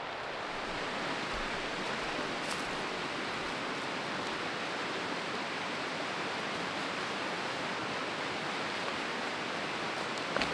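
Steady rush of a fast-flowing river running over rapids, an even hiss of water throughout, with a brief light knock near the end.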